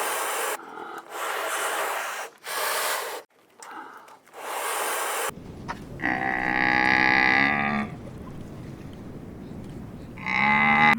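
Cow mooing: one long moo about six seconds in and a shorter one near the end. Before that come several short hissing bursts of noise.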